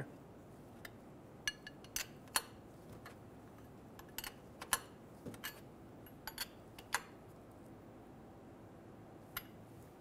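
Faint, scattered metallic clicks and clinks, about a dozen at irregular intervals, from a wrench working on an oil pressure switch as the new switch is snugged down.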